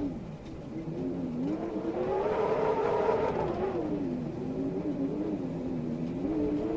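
Wind howling, its pitch sliding down and up again; it swells to its loudest and highest about two to three seconds in, dips, then rises again near the end.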